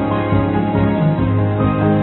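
Background music: a soft instrumental track of sustained notes.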